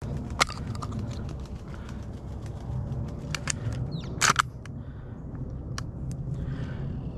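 Sharp clicks and knocks from handling a shotgun, the loudest a quick double knock about four seconds in, over a low rumble of wind on the microphone.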